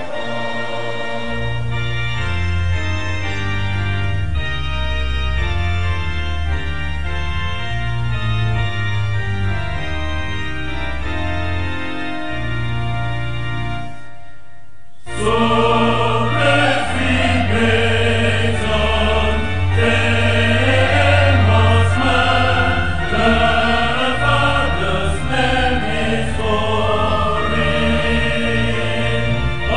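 Choral church music with long held chords over a strong bass. About halfway through it drops away briefly, then comes back louder and busier.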